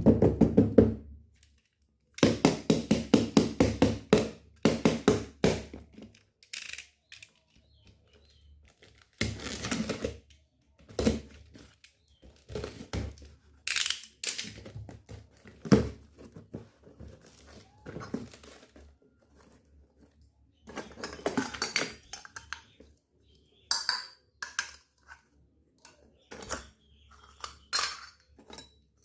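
Small stainless-steel toy kitchen utensils and pots clinking and knocking as they are handled and set down. The sound comes in irregular bursts of quick taps with short pauses between.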